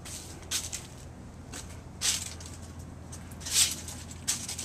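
Footsteps scuffing on leaf-strewn pavement, four brief scuffs over a steady low hum.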